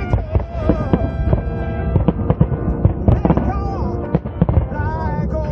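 Fireworks display: many bangs of bursting shells in quick succession, several a second, with music playing under them.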